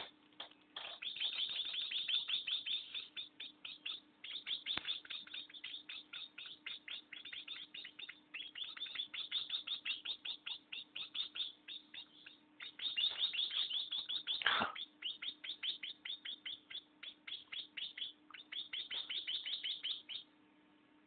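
Hand-reared baby birds begging with rapid, high-pitched chirps, about ten a second, in long runs with short pauses. A louder falling squeal comes about fourteen and a half seconds in, and the chirping stops shortly before the end.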